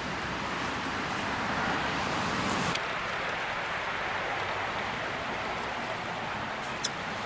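Steady outdoor background hiss, with a lower hum that drops away suddenly about three seconds in and a single sharp click near the end.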